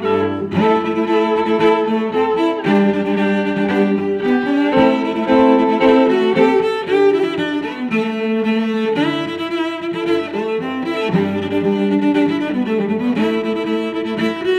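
Background instrumental music with bowed strings holding long notes and moving from chord to chord.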